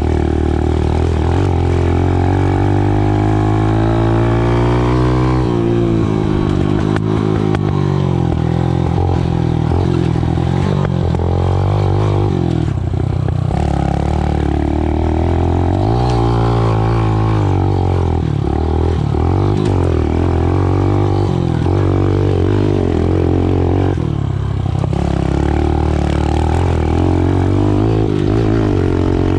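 Small 110cc engine under riding load, the revs climbing for about five seconds, dropping sharply, then rising and falling with the throttle.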